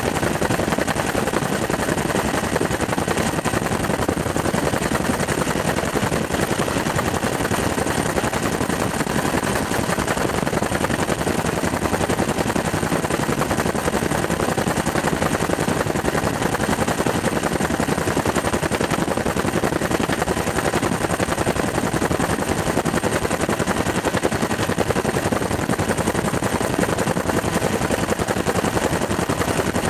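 Steady, loud aircraft cabin noise in flight: a dense rush of engine and airflow with a rapid fine chop, heard from inside the aircraft.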